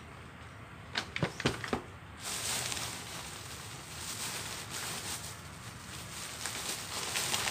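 A few sharp clicks and knocks about a second in, then plastic packaging and a plastic bag rustling and crinkling as goods are rummaged through.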